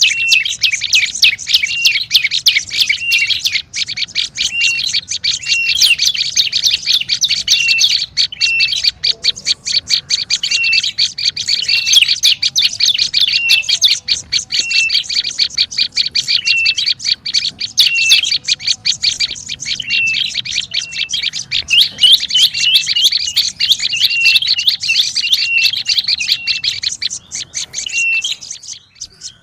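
Prenjak lumut birds calling in a fast, continuous high chatter, with a short dipping note repeated about once a second: a lure ('pikat') recording of the species' noisy call. It breaks off briefly near the end.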